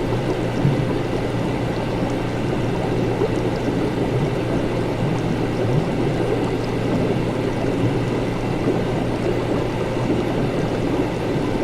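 Laboratory ambience: liquid bubbling and running steadily, over a low steady hum.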